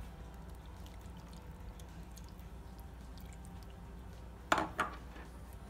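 Milk being poured into mashed potatoes in a pot and stirred in, soft and faint over a steady low hum. About four and a half seconds in come two quick sharp knocks of the spoon against the pot.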